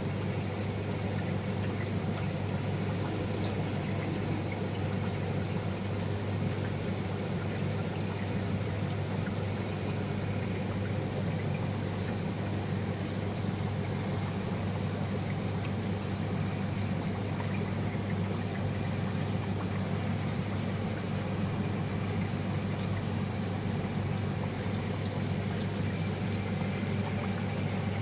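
Marine aquarium equipment running: a steady low pump hum under constant running, trickling water.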